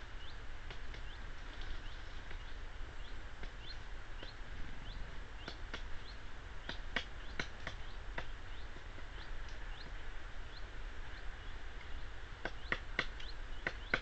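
Irregular sharp knocks, some in quick clusters, typical of a black woodpecker pecking at wood, over short high chirps of small birds and a steady low rumble.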